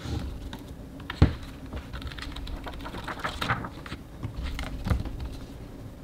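Pages of a hardcover photobook being handled and flipped: paper rustling and quick flicks. There is a sharp knock about a second in, another near five seconds, and a flutter of page flicks in between.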